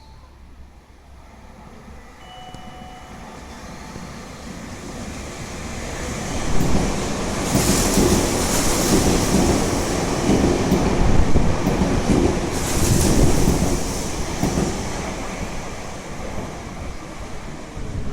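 Tokyu Oimachi Line express electric train passing through the station without stopping. Its wheel and motor noise builds up, stays loud for several seconds with two hissing surges, then fades away. The station's passing-train chime sounds one note a couple of seconds in.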